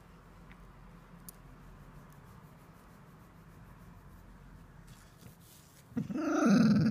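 Border Collie giving a loud, drawn-out grumbling whine, its pitch rising and dipping, about six seconds in, just as the scratching stops: a protest asking for the petting to go on.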